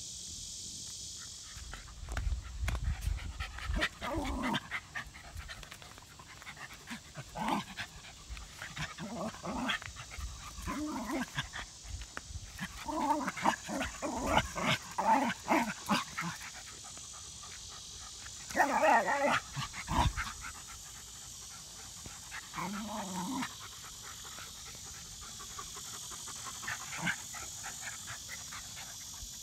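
Two rat terriers play-fighting, growling and snarling in repeated bursts of a second or two, loudest about two-thirds of the way through, over a steady high chirring of insects.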